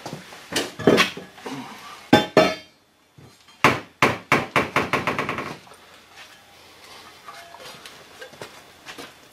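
Metal parts clanking and clinking as they are handled, in two quick flurries of sharp strikes. The first starts about half a second in, and after a short hush a faster run of about a dozen comes around four seconds in.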